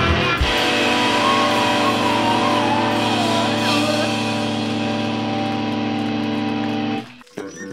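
Live rock band on electric guitars and bass: after a last hit, a loud chord is held and rings on steadily with wavering high tones over it, then cuts off suddenly about seven seconds in. Quiet, separate bass guitar notes follow at the very end.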